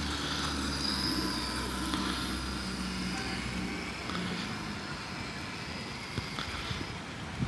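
A motor running steadily with a low hum, fading away about four seconds in.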